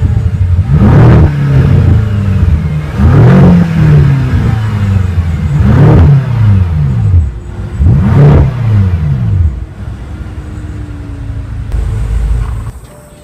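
BMW M6's twin-turbo V8 engine revved four times in quick succession while stationary, each rev climbing and falling back, then settling to idle.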